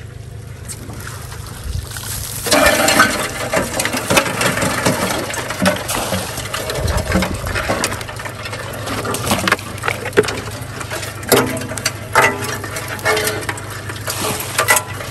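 Mesh crawfish trap pulled dripping from the water and emptied into an aluminum sorting tray: from about two and a half seconds in, splashing water and live crawfish clattering and clicking on the metal, over a steady low hum.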